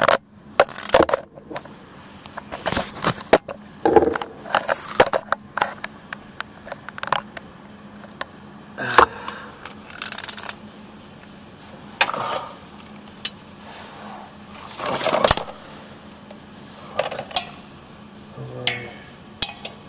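Irregular metallic clinks and clanks of hand tools working on the catalytic converter's mounting bolts, with a few longer scraping rustles in between.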